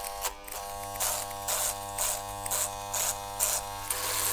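Electric hair clipper buzzing steadily, with short hissing strokes about twice a second.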